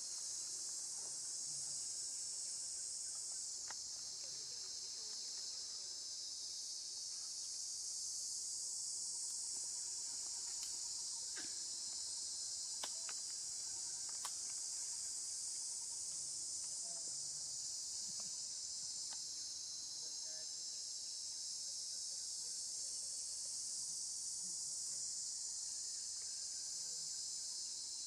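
Steady high-pitched chorus of insects droning without a break, swelling slightly a few seconds in, with a few faint ticks near the middle.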